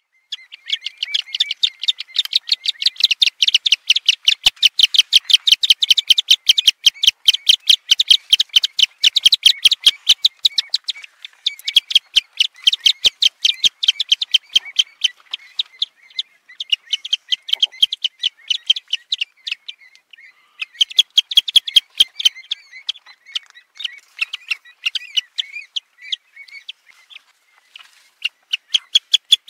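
Birds calling in fast runs of sharp repeated notes, about nine a second, with short breaks between the runs.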